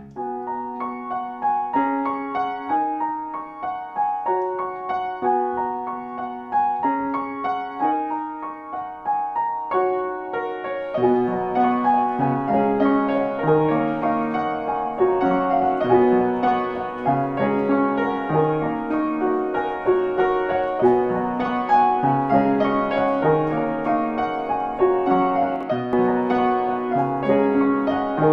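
Solo piano music, a gentle melody over chords, with a lower bass line joining about eleven seconds in.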